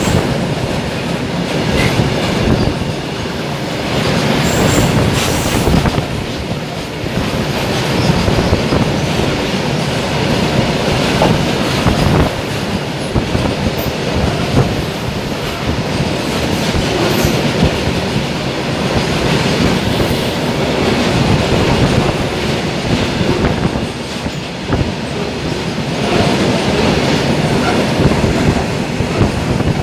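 Fully loaded coal wagons of a freight train rolling past, wheels clattering over the rail joints in a continuous clickety-clack, with brief high wheel squeals a few seconds in.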